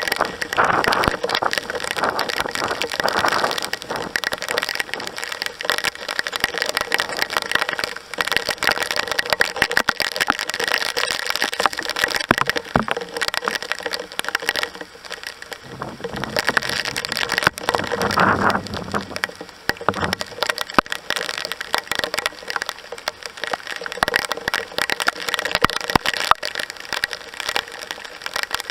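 Heavy downpour pouring down, a dense crackle of raindrops hitting nearby surfaces. A brief low rumble joins it about two-thirds of the way through.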